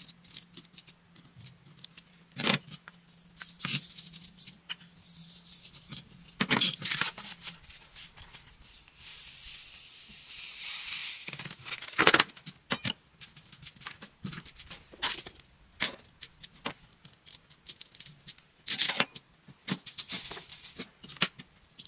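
Sand-art handling noises: tweezers picking and peeling the backing film with small clicks and taps, then black sand pouring and sliding off the tilted sheet as a steady hiss from about nine to eleven and a half seconds in, followed by sharp taps and rustles of the paper.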